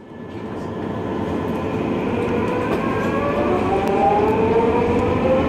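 Inside a metro train car: a steady running rumble with an electric motor whine that rises slowly in pitch as the train gathers speed. It fades in over the first second.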